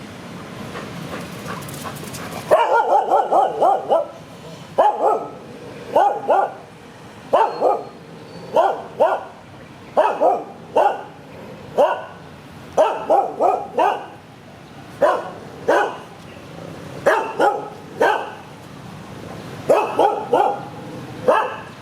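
A dog barking over and over, starting about two and a half seconds in, in quick runs of several barks separated by short pauses.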